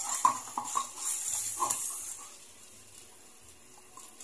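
A wire whisk stirring thickening flour sauce in an aluminium wok, clinking and scraping against the pan several times in the first couple of seconds, then quieter. A steady faint hiss runs underneath.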